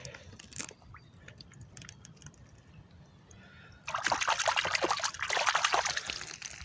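Quiet dripping and trickling water, then about four seconds in a sudden loud stretch of splashing and sloshing as the smallmouth bass is released back into the river.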